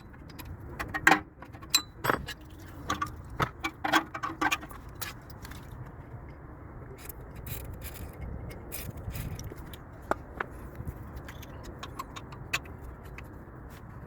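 Metal hand tools clinking and knocking against metal while a stuck ABS wheel speed sensor is worked on at a car's wheel hub. There is a dense run of sharp clicks and knocks in the first five seconds, then scattered single ones, over a steady low background rumble.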